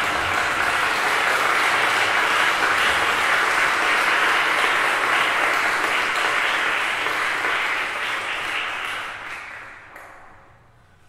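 Audience applauding, dying away over the last few seconds.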